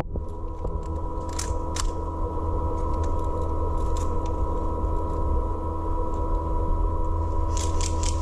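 Scattered sharp snaps of airsoft guns firing: single shots about 1.5 and 2 seconds in, then a quick string of four or five near the end. Under them runs a steady low rumble of wind and handling noise on the helmet or body camera's microphone, with a constant electronic hum.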